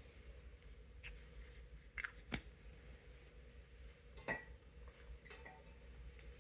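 A few faint, sharp clicks and taps of small parts being handled while working on an opened game controller, spread over several seconds, the loudest a little over two seconds in and just past four seconds in.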